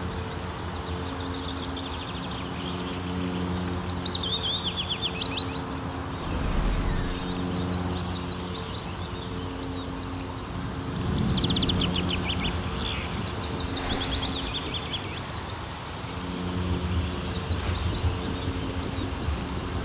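Songbird singing: quick trilled phrases that fall in pitch, a few seconds in and again about midway, over a steady low hum that drops out and comes back.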